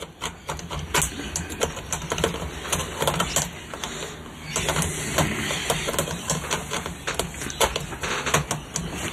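Irregular small clicks and rustles of hands handling wires and relay switch stacks in an electromechanical pinball machine's wiring, over a steady low hum.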